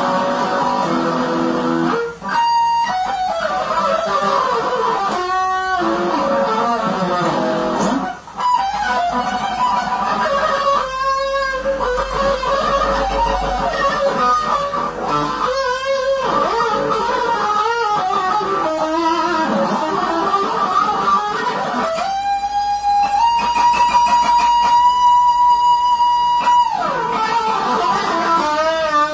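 Electric guitar lead playing: quick runs of single melodic notes with a couple of brief breaks. About three-quarters of the way through, one high note is bent up and held for several seconds before the runs resume.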